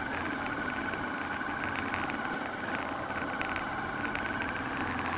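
Motorcycle engine running steadily while riding along a lane, with a steady low hum and a wavering whine.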